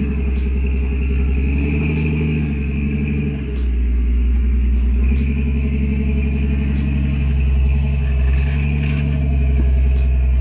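Rock-crawling Jeep's engine running at low revs under load as it climbs a rock ledge, the note swelling and easing a little as the throttle is worked.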